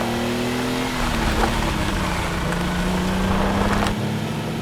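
A vehicle engine running steadily and loudly while driving. Its hum dips slightly in pitch about a second in.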